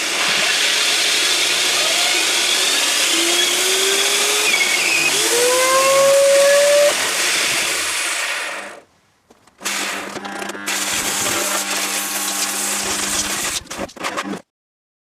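Sci-fi space cannon charging up: a loud hissing rush with rising whines that builds slightly for about nine seconds, then cuts off suddenly. After a short gap a second hiss with a steady low hum runs on, stopping shortly before the end.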